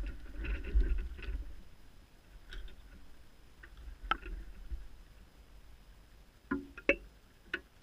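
Close handling noises of fishing tackle: a low rustle and rumble for the first second or so, then scattered light clicks and taps, with three sharper clicks near the end.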